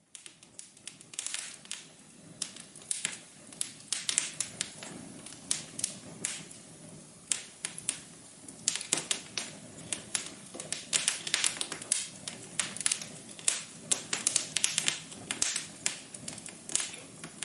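Wood fire crackling in a fireplace: irregular sharp pops and snaps, several a second, over a soft low hiss of burning.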